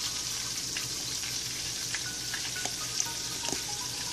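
Chicken deep-frying in hot oil: a steady sizzle, with a few faint clicks of a steel spoon against a ceramic bowl.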